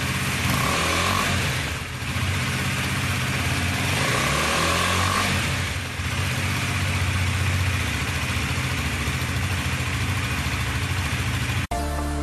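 Exhaust note of a KTM Duke 250's single-cylinder engine, running with its pitch rising and falling a few times as the throttle is blipped. Near the end it cuts off abruptly into electronic music.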